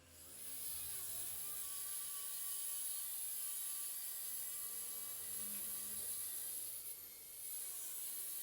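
Caowang CW1332 1800 W wall chaser with a twin-blade adapter running, its motor coming up to speed about half a second in and then holding a steady high whine while the blades grind into the wall. Near the end it is switched off and winds down.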